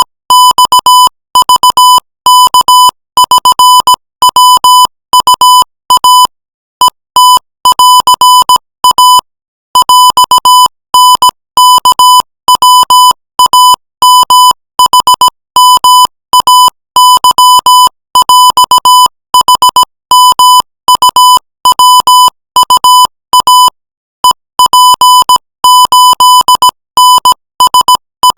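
Morse code sent at 20 words per minute as a single high-pitched tone keyed on and off in dots and dashes. There are short breaks between letters and a few longer pauses between words.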